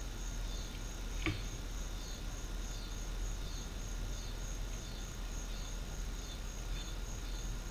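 Insects chirping steadily, a high pulsing trill with fainter repeated chirps under it, and one short knock about a second in.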